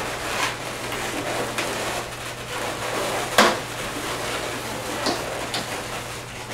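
Latex modelling balloons rubbing and squeaking against each other as they are handled and twisted together, with a louder sharp click about three and a half seconds in and two lighter ones near the end.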